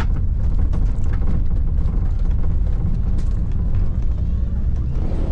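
Steady low rumble of a vehicle driving along a road, engine and road noise heard from inside the cab, with a few light knocks.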